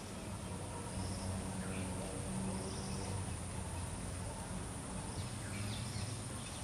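Outdoor ambience: a few short high chirps over a steady low hum.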